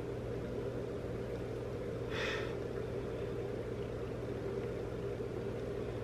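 One short, sharp breath through the nose about two seconds in, over a steady low room hum.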